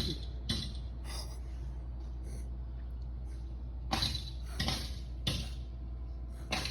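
A cat's rhythmic hiccup-like spasms: short sharp huffs about two a second at first, a lull, then another run from about four seconds in. The owner calls them hiccups and fears they may be the start of an asthma attack.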